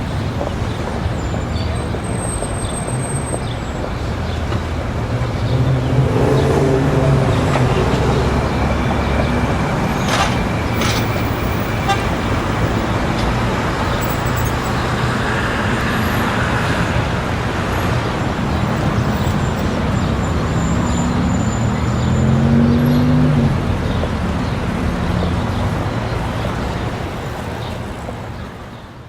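Busy city street ambience: steady traffic noise with a faint crowd murmur. Low drawn-out horn-like tones sound twice, about a fifth of the way in and again near the end, and the whole ambience fades out in the last couple of seconds.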